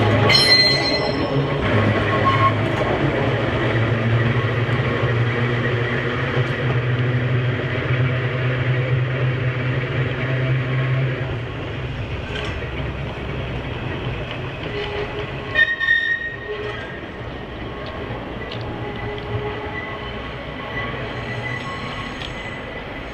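Manx Electric Railway heritage electric tram running along the track, a steady low hum with wheel-on-rail noise that drops away after about eleven seconds. About sixteen seconds in comes a short clatter and a brief high wheel squeal.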